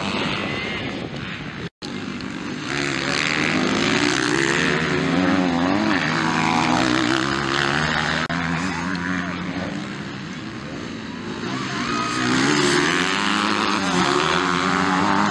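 Several motocross bike engines revving up and down as the bikes race past, the pitch rising and falling with throttle and gear changes. The sound cuts out briefly about two seconds in.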